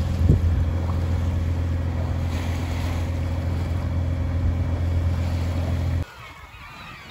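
A sailing yacht's engine running steadily under motor, a low even hum with wind and water around it. About six seconds in it cuts off abruptly, and a flock of gulls is heard calling faintly.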